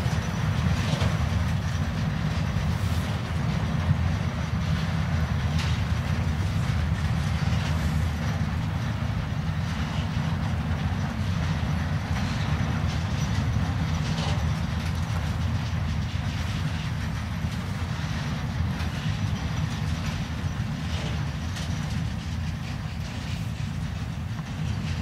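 Freight train wagons rolling past at a distance: a steady low rumble with occasional faint clicks from the wheels, easing off slightly as the end of the train draws away.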